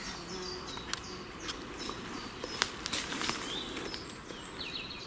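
Woodland ambience with small birds chirping, short high notes falling in pitch, repeated throughout. A few sharp clicks stand out, about one, one and a half and two and a half seconds in.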